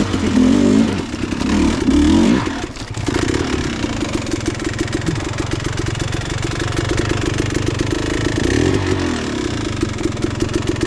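Dirt bike engine revving in short bursts for about two seconds, dropping off briefly, then running at low revs in a steady chug, with a short rev about eight seconds in.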